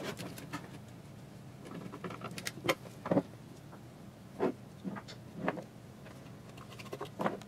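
Wires being fitted into a stepper motor driver's green screw terminal block: irregular light clicks and taps of hands, wire ends and terminal parts.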